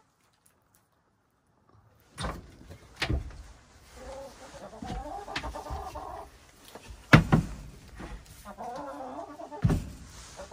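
Backyard hens clucking, starting about two seconds in, with several sharp wooden knocks and clunks as the coop door is handled and opened; the loudest knock comes about seven seconds in.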